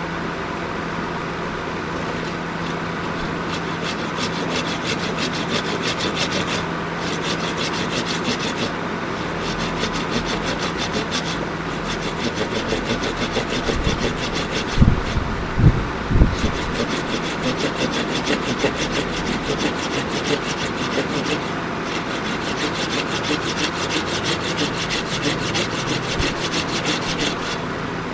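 Oak being worked with a hand tool in quick, repeated rubbing strokes, with a few short pauses. A steady low hum runs underneath, and a few knocks sound about halfway through.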